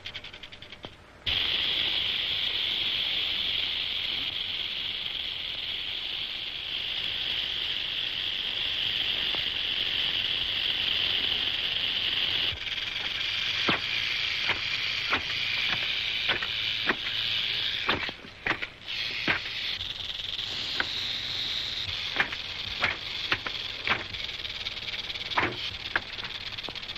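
Steady high hissing buzz that starts suddenly about a second in. From about halfway a run of sharp whip cracks comes over it, irregular, roughly one or two a second.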